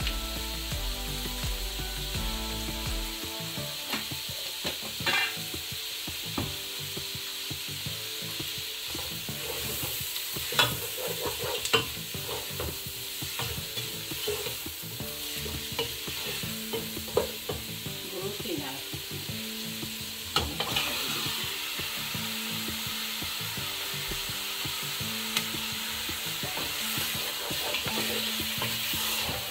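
Food frying in hot oil in a pan, with a steady sizzle, while it is stirred, giving occasional sharp clicks and scrapes against the pan. A soft tune of held notes plays underneath.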